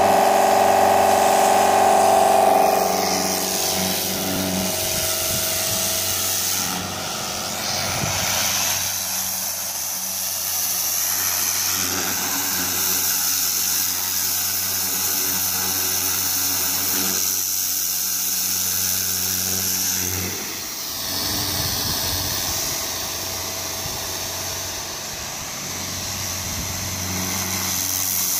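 Kränzle Profi 175 TS T electric pressure washer running: the pump motor hums under a steady hiss of water from the Dirtkiller rotary-nozzle lance. It is louder for the first few seconds, then settles into a steady run.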